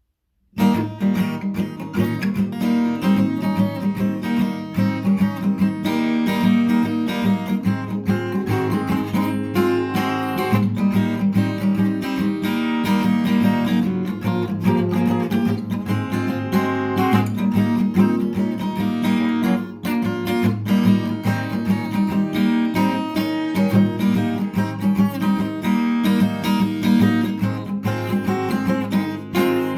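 Background music: strummed acoustic guitar with a steady rhythm, starting about half a second in.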